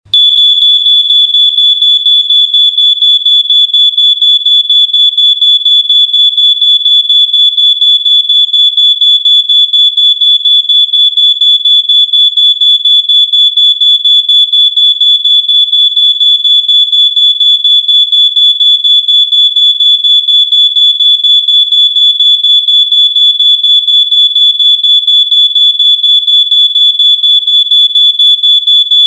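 Smoke alarm going off: a loud, high-pitched beep pulsing rapidly and evenly without a break.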